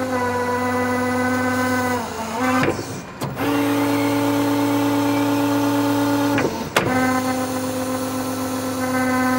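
Battery-electric reach truck's hydraulic pump motor running with a steady whine in three runs of a few seconds each, broken by short pauses with clicks, as the tilt cylinder extends and retracts to tilt the mast. The middle run is slightly higher in pitch than the other two.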